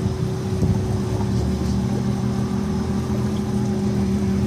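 Fishing boat's engine running steadily, a low drone with an even hum above it; the engine note grows stronger about a second in.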